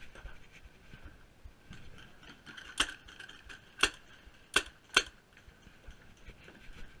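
Four sharp cracks of paintball fire about the wooden bunker in the second half, the last two close together, over a faint steady high tone.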